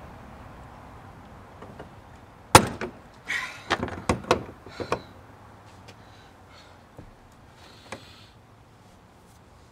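Fuel tank lock ring breaking loose under a long breaker bar and lock-ring removal tool: one sharp, loud crack about two and a half seconds in, followed by a quick run of knocks and clicks over the next couple of seconds, then a few faint clicks.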